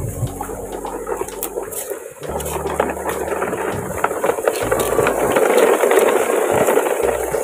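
A train of plastic toy dump trucks rolling and rattling over dry leaves and twigs, with constant crackling and crunching that grows louder in the second half.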